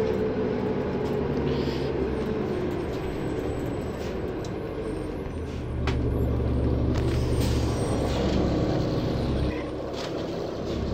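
Inside a moving city bus: the engine and road noise make a steady low drone, which grows louder from about halfway in and eases off again near the end. A few faint clicks and rattles sound over it.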